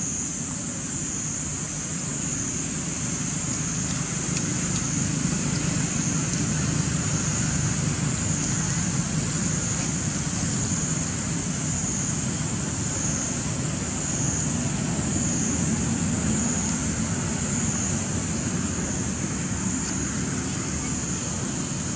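Steady outdoor background noise: a low, even rumble with a constant high-pitched drone above it, and no distinct animal calls or knocks.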